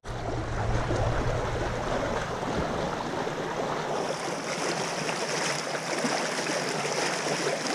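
Water lapping and washing against a dock piling and rock riprap, a steady rushing wash, with a low rumble in the first few seconds that fades out.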